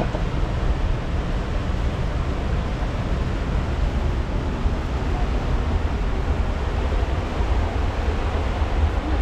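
Steady rushing of a fast, white-water mountain river over rocks.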